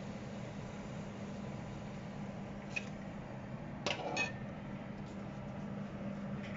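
Wire spider strainer clinking against a plate and the frying pan a few times just past the middle, over a steady hiss with a low hum.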